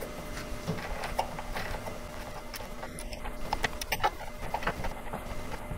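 Small screw being driven by hand with a small screwdriver through a metal bracket into a melamine panel: faint, irregular clicks and scrapes of the screwdriver tip turning in the screw head.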